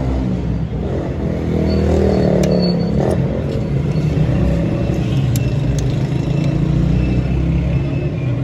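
A motor vehicle engine running steadily in the background, with a few light metallic clicks on top.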